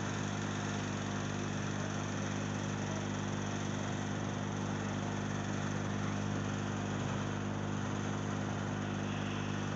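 A steady hum made of several low tones, with an even hiss above it, unchanging and with no clicks or knocks.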